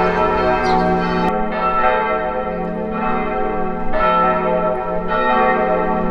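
Church bells ringing, several bells sounding together in a dense, lingering ring. Fresh strikes come about a second in and again near four and five seconds in.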